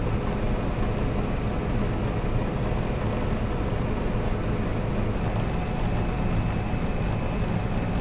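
John Deere 9770 STS combine harvester running steadily while cutting wheat, heard from inside the cab as an even, unbroken drone.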